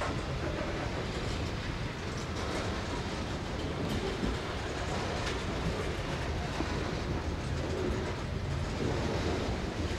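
Norfolk & Western No. 1218, a 2-6-6-4 articulated steam locomotive, working hard up a grade: a steady mass of exhaust and train noise with no clear separate beats.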